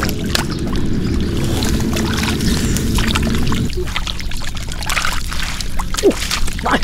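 Water splashing and pouring in shallow, muddy water as fish are caught by hand. A steady low hum runs underneath and stops abruptly a little over halfway through.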